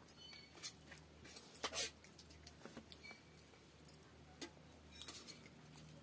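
Quiet hand-eating sounds: fingers mixing and picking up rice and curry on a banana leaf, with soft mouth and chewing noises. Scattered small clicks, with a louder cluster of them about two seconds in.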